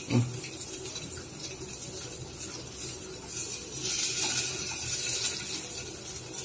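Boiled eggs shallow-frying in a little sunflower oil with turmeric in a kadai, a steady sizzling hiss as they are turned with a wooden spatula. The sizzle grows louder for a couple of seconds around the middle.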